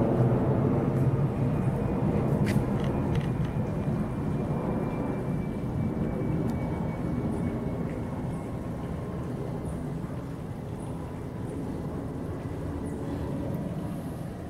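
Airplane flying high overhead: a steady low rumble that slowly fades as it passes.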